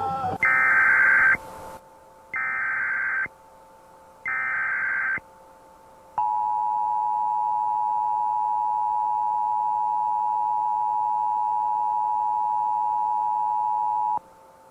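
Emergency Alert System tones: three bursts of SAME header data, a warbling digital screech about a second long each, with the first over a burst of hiss. Then, a second later, the two-tone attention signal (853 and 960 Hz together) sounds steadily for about eight seconds and cuts off.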